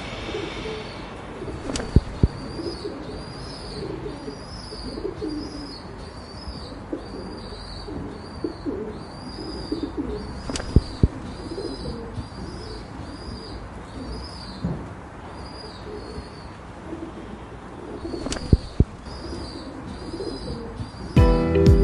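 Pigeons cooing in low, wavering murmurs, with a small bird chirping the same high note about twice a second and a few sharp clicks. Music starts just before the end.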